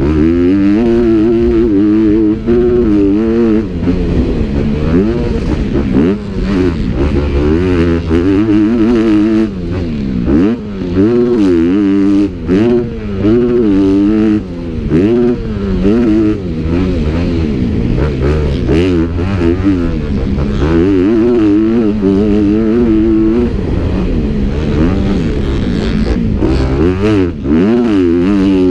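Motocross dirt bike engines racing, revving up and down continually, the pitch climbing and dropping again and again with throttle and gear changes.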